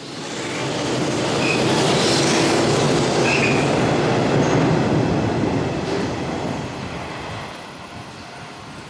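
Train passing: the rumble of wheels on rail swells over a couple of seconds, holds, then fades away, with a few brief wheel squeals near the loudest part.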